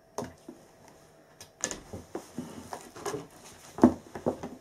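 A scatter of soft, irregular knocks and clicks, about ten in all, the loudest one near the end.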